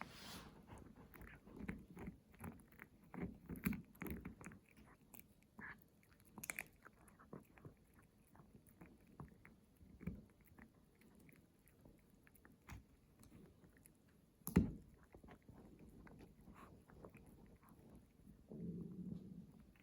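A pet chewing a raw whole turkey neck, with irregular wet crunches of bone and gristle and one loud crunch about three-quarters of the way through. A low rumble comes in near the end.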